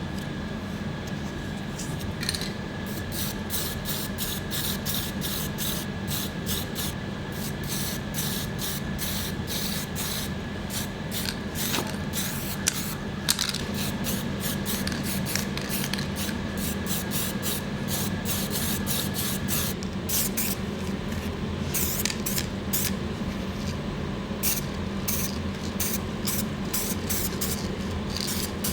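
Spray hissing in many short, quick bursts, several a second, over a steady low hum; a thin steady whine underneath stops about two-thirds of the way through.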